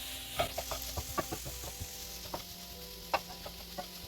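Chopped vegetables sizzling in butter in a frying pan as they are stirred, with irregular clicks and knocks of the utensil against the pan over a steady sizzle.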